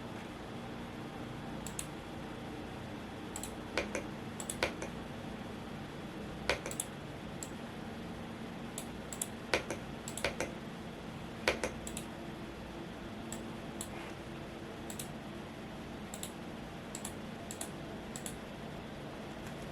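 Scattered, irregular keystrokes on a Womier S-K71 mechanical keyboard, a few sharper clacks among lighter taps, over the steady hum of a fan.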